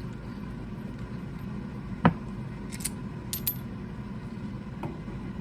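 Metal parts clacking: one sharp clack about two seconds in, then a few light clinks, as a steel quick change tool post is fitted over the mini lathe's tool-post stud to check the fit.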